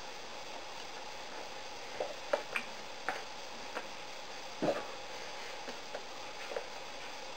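Scattered soft taps and slaps of hands meeting each other and brushing clothing during sign language, about ten of them starting some two seconds in, over a steady hiss with a faint hum.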